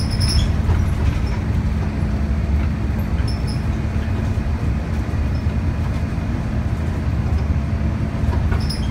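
Steady low rumble of a bus's engine and tyres heard from inside the moving bus, with a steady low hum and a few faint high ticks near the start and near the end.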